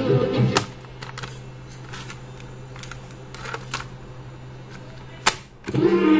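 Cassette tape music cuts off with a click. Then come a series of small plastic clicks and clatters from the Aiwa TA123 cassette player's keys and flip-open cassette door, over a steady low hum from the connected speaker. Near the end there is one loud click, and the tape music starts again.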